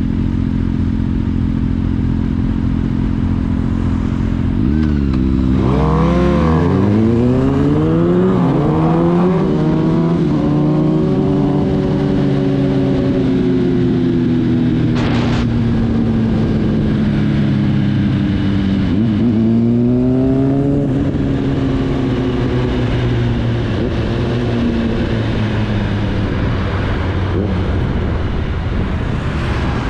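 Kawasaki Ninja ZX-10R's inline-four engine idling, then accelerating hard about five seconds in through several quick upshifts, each one a rising note that drops back. It settles into a steady cruise, with one sharp click about fifteen seconds in and another short surge of throttle around twenty seconds.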